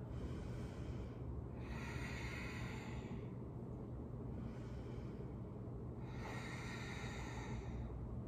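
A woman breathing while exercising: two long, soft breaths, each about a second and a half, near two seconds and near six seconds in, over a steady low hum.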